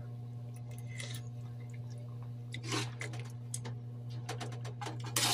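Metal ladle moving in sauce in a metal wok, with a few faint clinks and soft wet sounds as the sauce is taken up and tasted. A steady low hum runs underneath.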